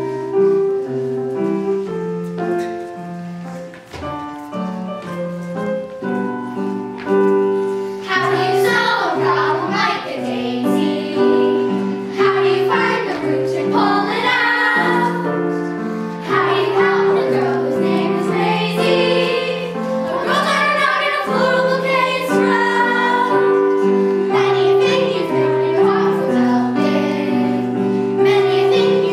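Children's chorus singing a show tune over instrumental accompaniment. The accompaniment starts abruptly, and the children's voices come in about eight seconds in.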